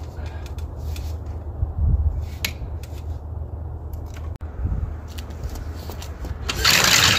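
Small clicks and knocks of a cordless drill being handled and fitted into a home-made chain-drive pusher on a sled handle, over a steady low rumble. Near the end comes a loud, harsh rushing noise.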